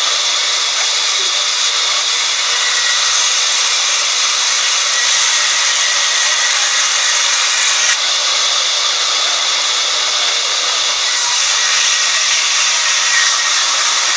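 Band saw running and ripping planks lengthwise: a steady, loud noise of the blade cutting through wood, with a small dip about eight seconds in as the next cut begins.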